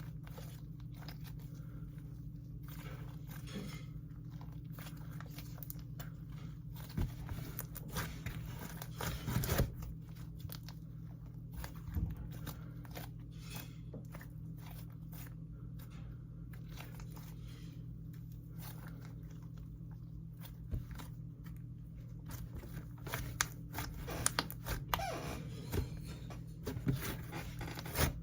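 Hands squishing and folding slime as soft clay is mixed into it, with scattered small crackles and pops that come thicker about a quarter of the way in and again near the end. A steady low hum lies underneath.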